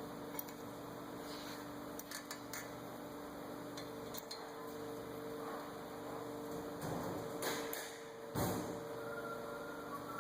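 Scattered light metallic clicks and knocks as a brake caliper is worked into place over new pads and the rotor, with a louder clunk near the end, over a steady low hum.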